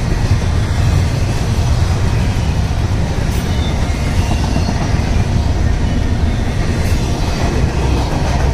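Double-stack intermodal container train rolling past close by: the wheels on the rails make a steady low rumble, with a couple of faint clicks.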